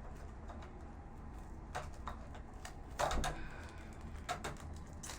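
Scattered light clicks and knocks of a screwdriver and monitor parts being handled during disassembly, with the loudest cluster of knocks about three seconds in.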